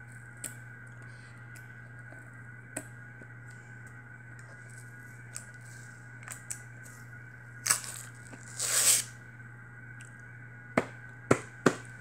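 Fingernails picking and tearing at the sealed packaging of a cardboard smartphone box: scattered small clicks, a tearing rasp about eight to nine seconds in, and a few sharp snaps near the end, over a steady background hum.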